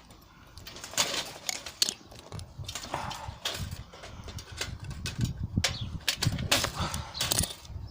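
Parts of a dismantled toaster being handled: irregular clicks and clinks of thin metal and small components, with a low rumble of handling.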